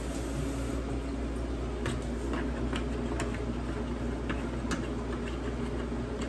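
A metal fork working seasoned beef roasts in a disposable aluminium foil pan, giving a few light clicks now and then over a steady low hum.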